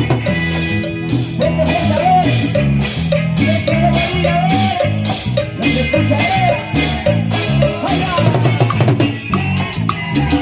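Live band playing Latin dance music in an instrumental passage without singing: bass, a melodic line and a drum kit. The drums strike a steady beat about twice a second, and the sharp strokes drop out about eight seconds in.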